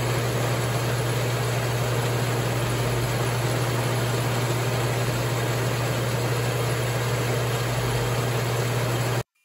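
Logan 922 lathe running, its spindle turning an end mill for milling, a steady machine hum. It cuts off abruptly about nine seconds in.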